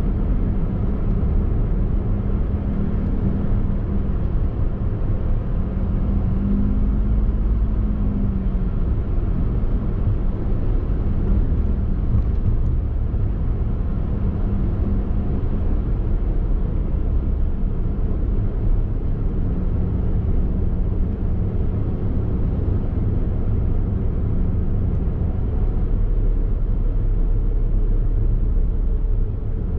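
Daihatsu Mira e:S kei car, with its small three-cylinder engine, driving at a steady speed: a low, continuous engine hum and road noise. The engine note rises briefly about seven seconds in.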